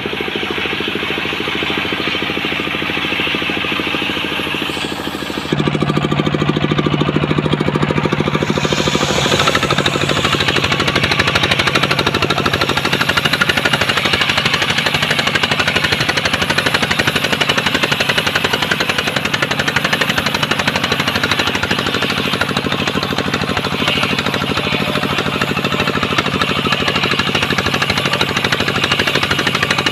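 Homemade circular saw rig running steadily, sawing coconut palm wood; the sound gets louder about five seconds in and stays that way.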